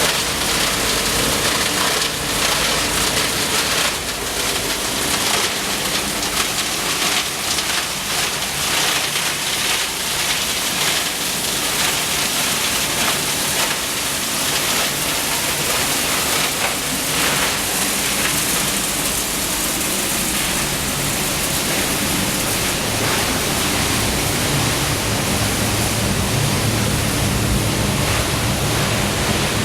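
Plastic washing and recycling line for fast food boxes running: a steady rush of water with machinery noise, and a low motor hum that grows stronger about three-quarters of the way through.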